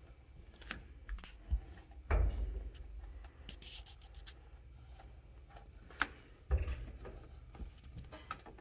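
Hands working a pull cord through a new rubber windshield seal: scattered rubbing and scraping with short clicks and a few dull thumps, the loudest about two seconds in, as the seal lip is drawn over the frame and the glass is pressed into place.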